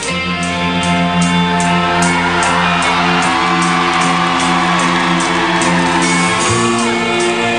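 Instrumental passage of a rock song: sustained electric guitar chords with a lead guitar line that bends up and down in pitch, over a steady cymbal beat of about three strokes a second.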